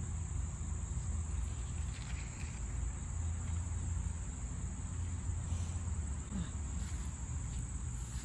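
Insects chirring in a steady, unbroken high drone, over a low rumble on the microphone.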